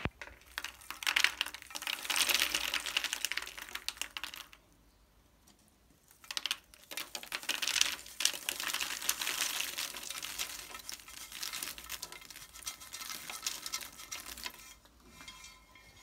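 Popped popcorn poured onto a ceramic plate: a dense patter of light pieces clicking and rustling against the plate and each other. It comes in two pours, with a pause of about two seconds between them.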